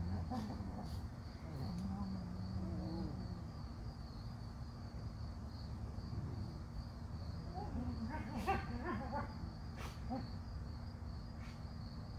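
Insects chirring in the background: one steady high-pitched trill that pulses slightly. Short low pitched sounds come through about two seconds in and again around eight seconds in.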